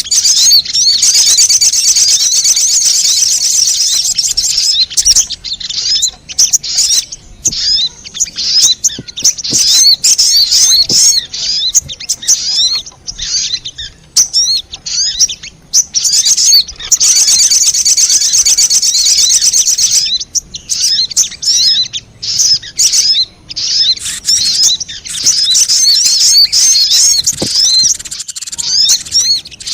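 Sogon bird song played as a lure call: rapid, high chirping twitters in long runs of several seconds, broken by short gaps and scattered single chirps.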